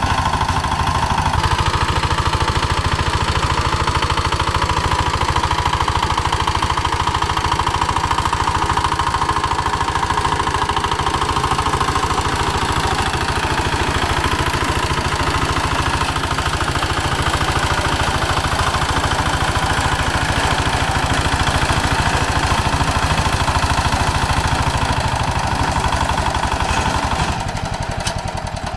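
Walk-behind tractor engine running steadily under load as its rotary tiller works dry, hard-baked soil, a labouring pass through ground the farmer calls like stone. The engine drops to a lower level near the end.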